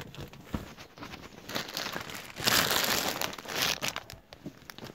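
Gift-wrapping paper being crumpled and rustled by hand close to the microphone, with a louder burst of crinkling about two and a half seconds in that lasts about a second.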